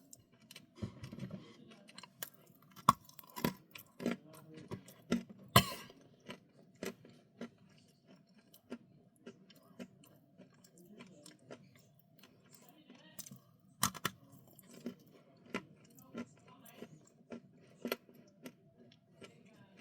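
Close-miked chewing of crunchy small bites, with irregular sharp crunches and crackles over soft mouth sounds; the loudest crunches come between about three and six seconds in and again around fourteen seconds.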